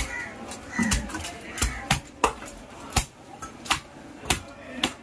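Heavy cleaver chopping through a large fish on a wooden chopping block: a string of sharp chops, about eight, one every half second or so.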